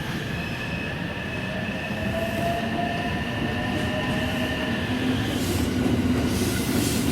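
JR West 225 series electric train running out of service: a rumble with several steady whining tones from its running gear, getting gradually louder.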